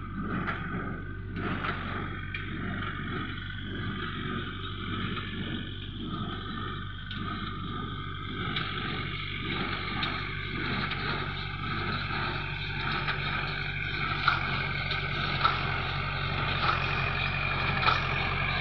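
Tractor engine running steadily while towing a small square baler that is pressing rice straw into bales. From about three-quarters of the way in, sharp knocks come about once a second and grow louder as the rig comes closer.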